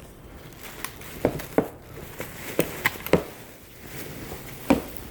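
Handling noise as dresses are taken out and moved: about six sharp clicks and knocks over light rustling.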